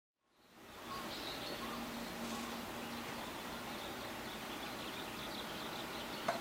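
Outdoor forest ambience fading in: a steady, even hiss with scattered faint high bird chirps, and one brief louder call near the end.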